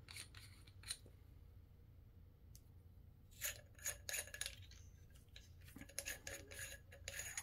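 Light metallic clinks and taps from a small metal storage tube and its parts being handled: a few about three and a half seconds in, then a quick run of them near the end.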